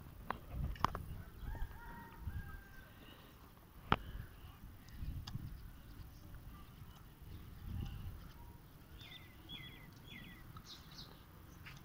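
Birds calling: a few short calls in the first three seconds and a quick run of three or four falling calls near the end. A sharp click comes about four seconds in, over low rumbling on the microphone.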